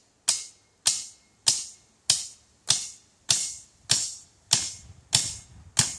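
Hatchet striking a tree-tube stake, driving it into the ground: about ten sharp, evenly spaced blows, a little under two a second.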